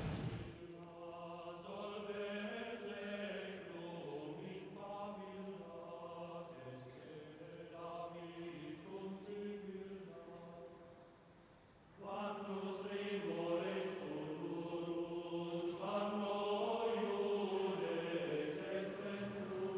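Chant-like choral music: several voices holding long notes that move in slow steps over a low sustained drone. It fades out about ten seconds in and comes back strongly about two seconds later.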